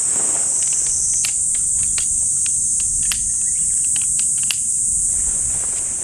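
A steady, high-pitched drone of a summer insect chorus, with scattered light clicks and taps over it.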